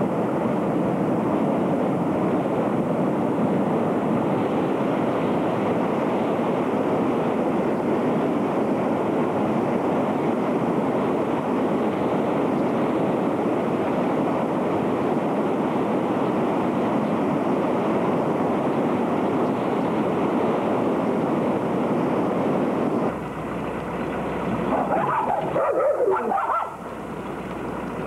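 Muddy floodwater of the flash-flooding Malom stream rushing through village streets in a steady rush of noise. Near the end the noise drops and a few short higher-pitched sounds come through.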